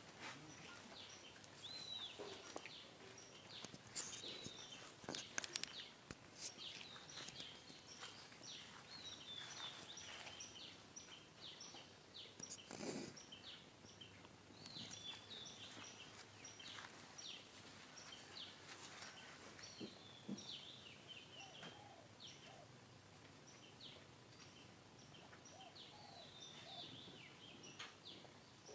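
Faint background of small birds chirping, many short calls throughout, with a few sharp clicks about four to six seconds in.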